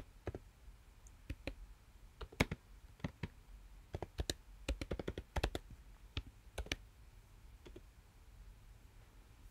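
Typing on a computer keyboard: keystrokes come in short, irregular runs, with a few scattered clicks after a pause and then stopping near the end.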